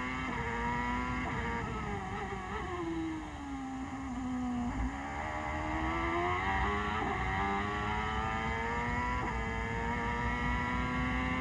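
In-car sound of a 2001 CART Champ Car's turbocharged V8 at racing speed. The engine note sinks as the revs drop from a little over a second in to its lowest point around the middle, then climbs back up as the car accelerates and holds a high, steady pitch to the end.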